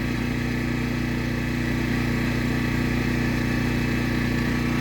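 Predator 1400 inverter generator's small engine running steadily in eco mode at about 3600 rpm, with no load on it yet.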